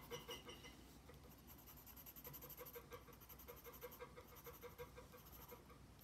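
Faint pencil scratching on paper: quick, short repeated strokes of shading.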